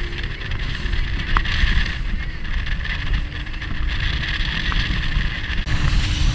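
Fishing boat running across open water: wind buffeting the microphone over a steady motor note. About six seconds in, a louder rush of water spraying along the hull.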